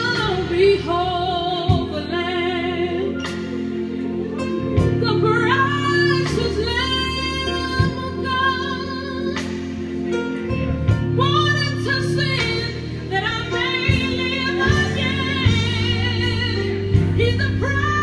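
A worship song playing: a woman singing with a wavering, vibrato-laden voice over sustained instrumental chords.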